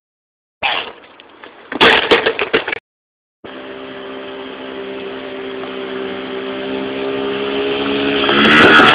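Mini dirt bike engine running steadily and growing louder as it rides toward the microphone, its pitch wavering near the end. Before it comes a couple of seconds of irregular clattering noise.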